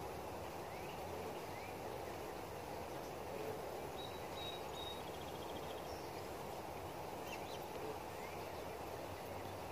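Steady outdoor background noise with a few faint, short bird chirps scattered through it, including a brief rapid trill about halfway.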